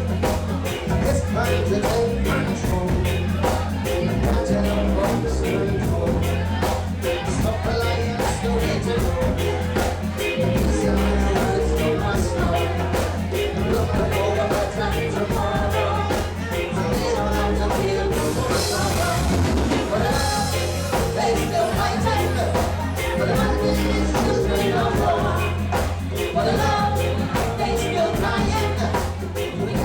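Live reggae band playing, with a heavy bass line under a steady drum-kit rhythm.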